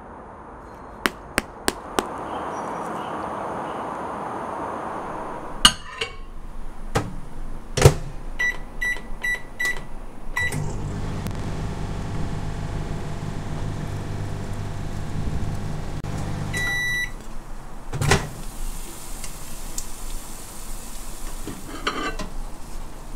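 An LG microwave oven in use. The door clicks shut, five short keypad beeps sound, and the oven runs with a steady low hum for about six seconds. The hum stops with a longer end beep, and a loud click follows as the door opens, then light clatter as a plate is lifted out.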